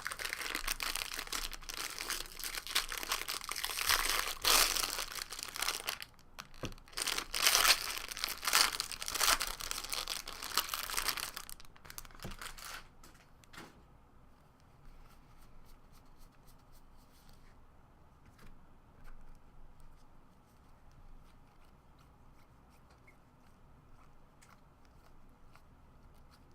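A jumbo trading-card pack's wrapper being torn open and crinkled in the hands, a dense crackling for about the first thirteen seconds. After that it drops to faint, occasional light clicks of handling.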